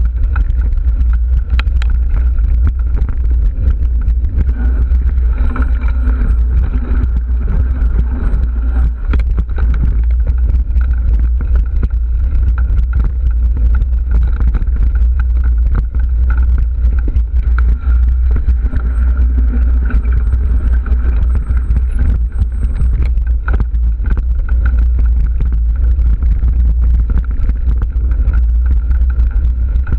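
Mountain bike riding on a dirt singletrack, heard through an action camera's microphone: a steady low wind rumble on the microphone with the rattle and crunch of the bike over the trail, many small knocks throughout.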